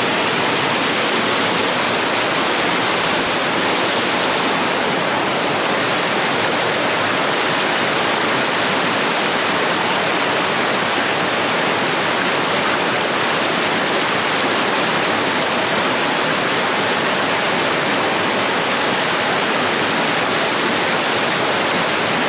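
Mountain stream of flowing water rushing steadily close by, an even, unbroken hiss.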